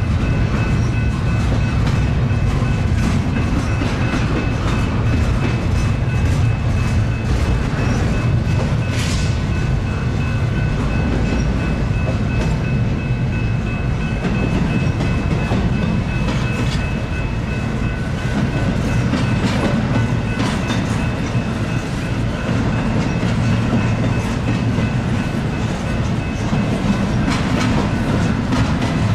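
Long Norfolk Southern intermodal freight train rolling past: a steady rumble of car wheels with scattered clicks over the rail joints, and a thin steady high whine running through it.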